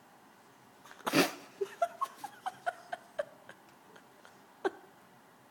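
A person's exaggerated fake cough: one loud hack about a second in, followed by a quick run of short, clipped throat sounds and another sharp hack near the end.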